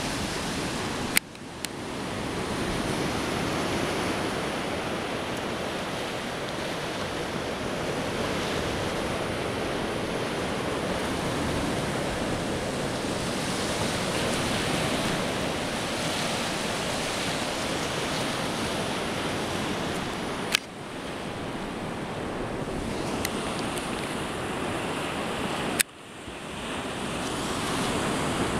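Small Baltic Sea waves breaking and washing up on a sandy beach, a steady rushing surf with wind on the microphone. Three sharp clicks, about a second in, about two-thirds through and near the end, each followed by a moment when the surf sound drops and swells back.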